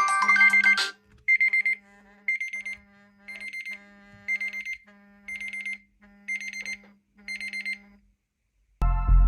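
Smartphone alarm-clock tone: a burst of rapid electronic beeps about once a second, seven times, over a steady low hum. The tail of a musical ringtone comes before it, and a new musical ringtone starts near the end.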